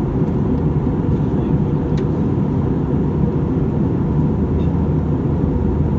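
Airbus A320 cabin noise in flight: a steady, deep rush of engines and airflow heard from a window seat, with a faint steady whine running through it. There is a single light click about two seconds in.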